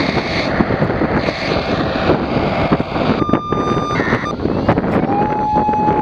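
Strong wind buffeting the microphone, with radio siren-activation tones from a scanner: a short steady high tone about three seconds in, then a longer, slightly lower steady tone from about five seconds in.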